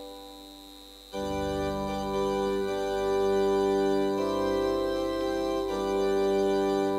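Organ playing the introduction to a hymn in sustained chords. A held chord fades away, then a louder chord comes in about a second in and changes a couple of times.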